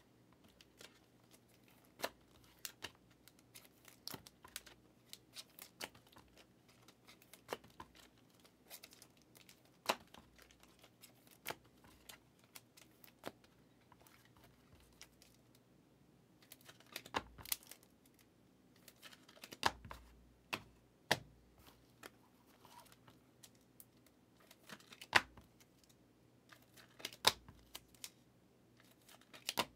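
Trading cards and plastic card sleeves and holders being handled on a table: irregular soft clicks, taps and crinkles, with a few louder knocks in the second half.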